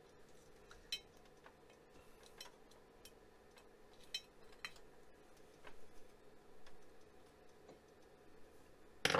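Scattered light clicks and ticks of a screwdriver and fingers working on screws and parts inside an Apple Lisa's metal chassis, with one louder knock near the end.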